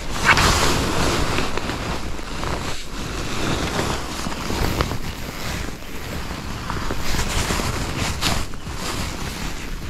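Wind buffeting the camera microphone in a steady low rumble, with brief rustles as hands handle a fish in a mesh landing net, the loudest about a third of a second in and again about eight seconds in.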